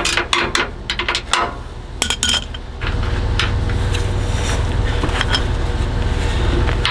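Hand wrench working a 14 mm sway-bar-to-frame bolt loose under a vehicle: a quick run of metal clicks and knocks for the first few seconds, then scattered light ticks. A steady low rumble sets in about three seconds in.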